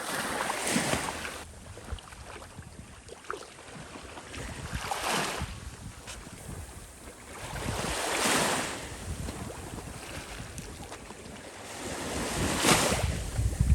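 Small ocean waves washing in and out on the shore, swelling and fading about every four seconds, with wind buffeting the microphone.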